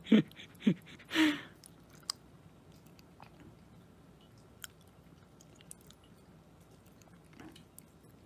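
White Pomeranian puppy chewing and biting a soft cooked meat patty held out by hand: a few louder bites in the first second and a half, then faint, scattered chewing clicks.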